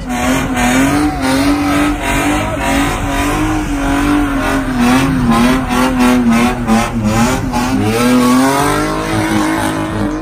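Car doing a burnout: the engine held at high revs, its pitch wavering up and down as the throttle is worked, over the squeal of spinning tyres.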